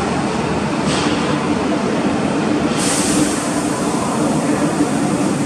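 Steady rumble of subway trains in an underground station, just after a Tokyo Metro 13000 series train has pulled out and run into the tunnel. A steady hum comes in about a second in, and a hiss joins near three seconds.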